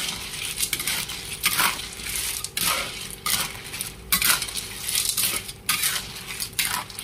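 A spatula stirs sea snails in their shells through boiling broth in a large wok. It makes an irregular run of clinks, knocks and scrapes, about two a second, as the shells and spatula strike the wok.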